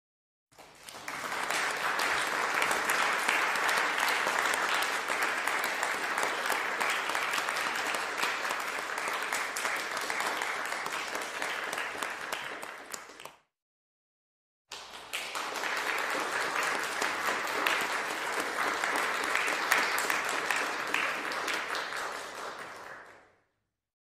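Crowd applauding: two separate applause recordings, the first about thirteen seconds long and the second about nine, with a second or so of silence between them. Each fades out at its end.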